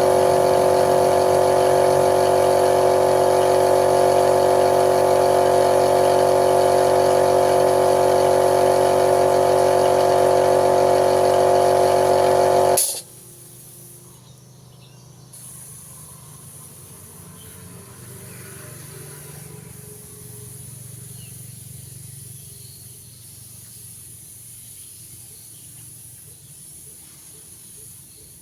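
A machine driven by an electric motor runs steadily with an even, many-toned hum, then shuts off abruptly about thirteen seconds in, leaving only a faint low background hum.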